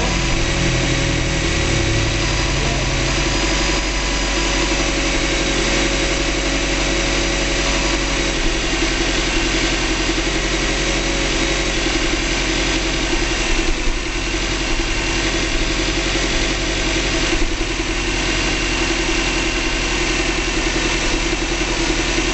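Freshly rebuilt 2005 Subaru Legacy GT turbocharged flat-four engine idling steadily with the hood open.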